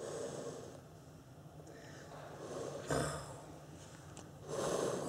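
Caged leopard cat hissing and spitting in defensive threat: three breathy bursts, one as it starts, a sharp louder spit about three seconds in, and another near the end.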